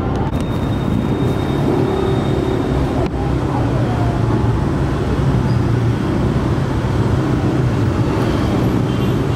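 Street traffic dominated by motorbikes and scooters passing, a steady low engine drone with traffic noise over it. A brief click about three seconds in.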